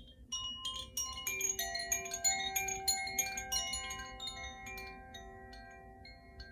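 Koshi chime, tuned metal rods inside a bamboo tube, set swinging: a quick cluster of bright, ringing notes just after the start, thinning out after about four seconds as the notes ring on and fade.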